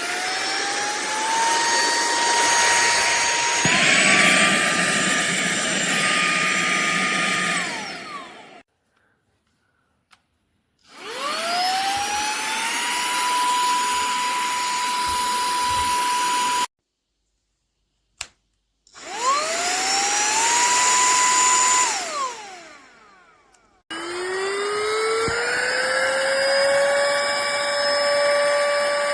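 Cordless handheld vacuum cleaner motor switched on four times. Each time it spins up with a rising whine to a steady pitch, then stops. About four seconds in, the pitch steps up a little. Some runs wind down and one cuts off suddenly; the last run settles at a lower pitch.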